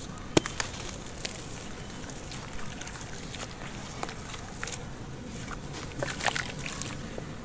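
Dry clay chunks crumbling and breaking apart in a tub of water, with water sloshing as hands work the soaked mud. Sharp crackles of breaking clay are scattered through it: one loud snap about half a second in and a cluster of crackles around six seconds in.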